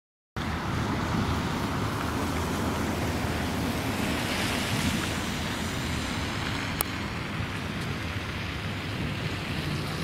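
Blizzard wind blowing across the microphone: a steady rushing noise with a rumbling low end, starting suddenly just after the start. There is a single brief click about two-thirds of the way through.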